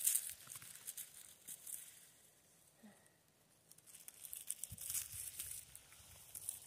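Dry moss, grass and forest litter crackling and rustling under a hand picking chanterelle mushrooms. The crackles come in two spells of quick little snaps, with a quieter stretch in the middle.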